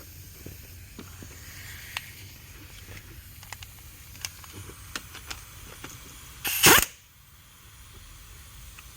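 Scattered light clicks and clinks of hand tools and metal parts while a kickdown cable bracket is fitted to a transmission valve body bolt, with one short, loud hiss about six and a half seconds in.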